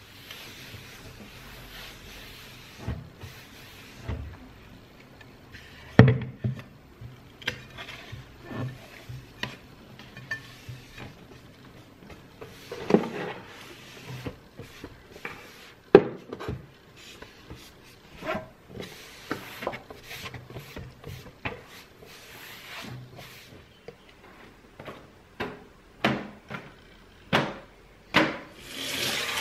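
Household cleaning and handling sounds: a cloth rubbing and wiping over surfaces, with scattered knocks and clicks as things are handled and set down, the sharpest knocks about six, thirteen and sixteen seconds in.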